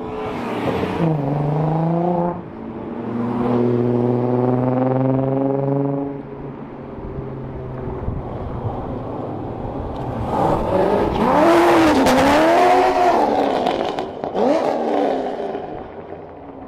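Cars driving along a street, their engines heard as they pass. A steady engine drone in the first few seconds gives way, after a quieter stretch, to an engine revved up and down two or three times, the loudest part, near the end.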